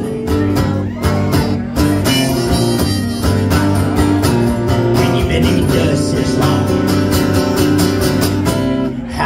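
Harmonica solo played from a neck rack over strummed acoustic guitars, in a country-blues style.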